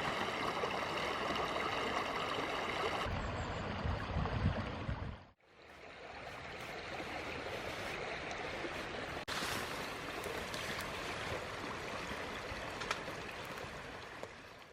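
A steady rushing, hissing noise like flowing water, with a low rumble for a couple of seconds. It cuts out about five seconds in, returns, and breaks again briefly later.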